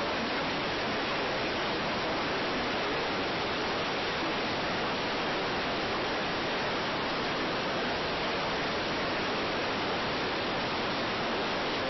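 Steady static hiss, even and unchanging, with no tones or breaks.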